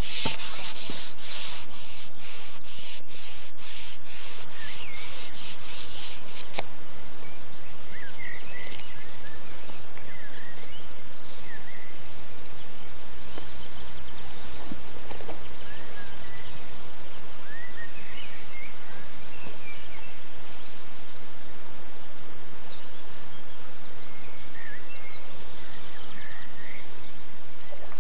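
Rhythmic rubbing, a little over two strokes a second, for the first six seconds or so, stopping abruptly; then steady outdoor background hiss with small birds chirping here and there.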